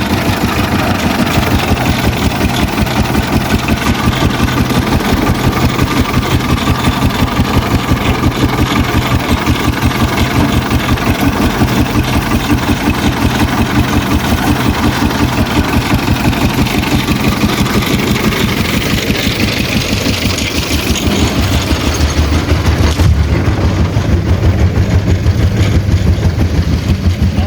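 An engine running steadily with a fast, even pulse, most likely construction machinery. About 23 seconds in its sound shifts: the higher noise drops away and a deeper hum grows louder.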